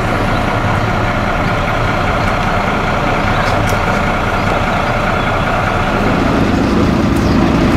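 Bus engine idling steadily, with a deeper hum coming in and growing a little louder about six seconds in.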